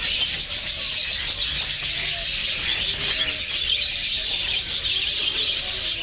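A flock of lovebirds chattering, many birds chirping over one another in a continuous, dense, high-pitched twitter.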